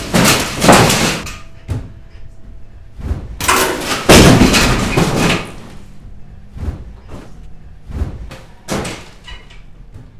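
Crashing and banging of falling ceiling panels, boards and metal framing: two long loud crashes, one at the start and one about three and a half seconds in, then a series of separate bangs and knocks as pieces drop.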